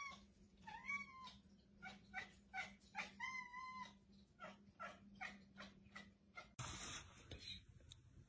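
A cat meowing: a few longer calls that rise and fall, mixed with runs of short, clipped calls about three a second. A faint steady hum lies underneath, and about six and a half seconds in the sound cuts abruptly to a louder hiss.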